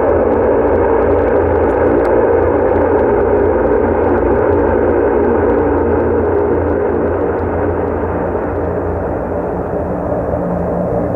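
Antonov An-12's four turboprop engines running loudly: a steady drone with a low hum beneath it, easing slightly near the end.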